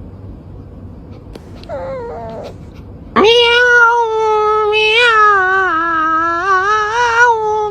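A cat meows briefly, then lets out a loud, long wavering yowl lasting about four seconds that dips lower midway. It starts another short call right at the end.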